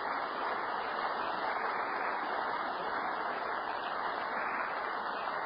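Steady rushing noise with no distinct claps or tones, building up just before and then holding even.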